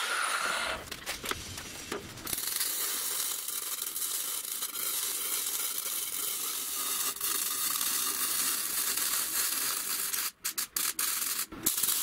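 Electric arc welding on steel tube: a steady crackling hiss, broken by a few short stops near the end as the arc is broken and struck again.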